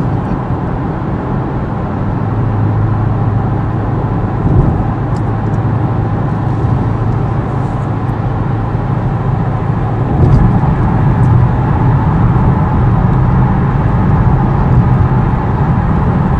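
Ford Mustang cruising at highway speed, heard from inside the cabin: a steady low drone of engine and tyre noise that grows louder about ten seconds in.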